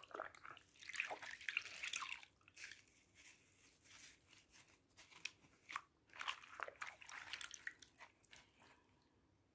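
Soapy water sloshing and dripping as a cross-stitch canvas is rubbed and squeezed by hand in a basin of suds, in faint, irregular splashes and crackles that die away near the end.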